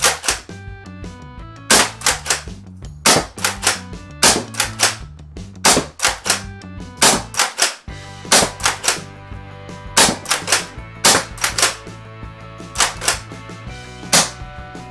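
Rekt OpFour CO2-powered foam dart blaster firing repeatedly: sharp cracks in quick clusters of two or three, about one cluster every second or so, over background music.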